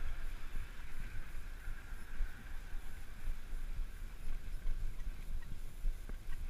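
Wind buffeting the microphone of a camera on a moving tandem bicycle: an uneven, gusting low rumble.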